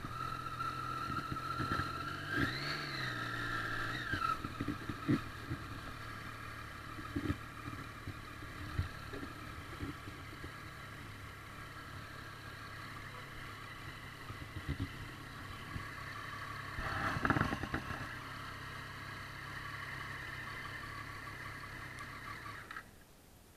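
Triumph Street Triple's three-cylinder engine running at low speed, with a brief rise and fall in revs a few seconds in and a short burst of noise about two-thirds of the way through. The engine cuts off suddenly shortly before the end.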